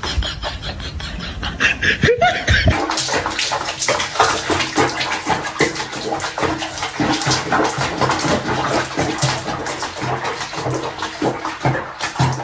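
Bath water sloshing and splashing in a washbasin of soapy water around a cat being bathed, a busy stream of small splashes that starts about two and a half seconds in.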